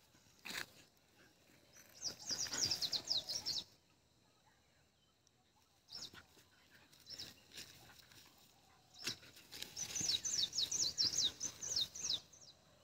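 A bird chattering in two bursts of rapid, high, falling chirps, each one to two and a half seconds long, over a harsh rasp. A few sharp clicks sound in between.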